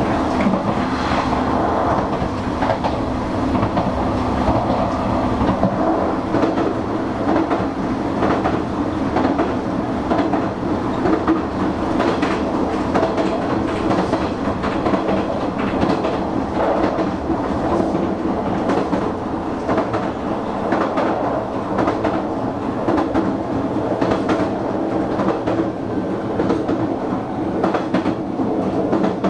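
Hanshin Railway electric train running steadily along the line, a continuous rumble with the wheels clacking over rail joints.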